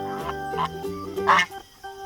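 Goose honking, two calls less than a second apart, the second louder, over background music with held notes.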